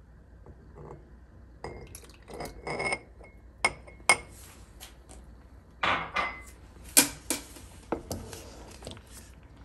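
A metal spoon clinking against a glass as brewed saffron is spooned into the halva pot: a string of sharp, irregular clinks with a short ring, starting about a second and a half in.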